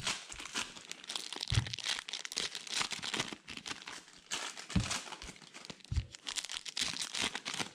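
Foil wrappers of 2020 Donruss baseball card packs crinkling and tearing as they are ripped open by hand, with a few short low thumps.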